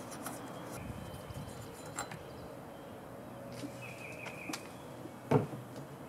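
Quiet background with a few light knocks, the loudest just after five seconds in, and a short faint high chirp a little after four seconds.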